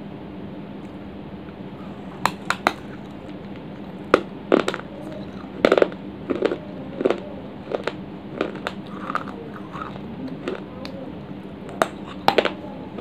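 Dry baked clay being bitten and chewed: sharp, irregular crunches of clay pot pieces, starting about two seconds in, over a steady low hum.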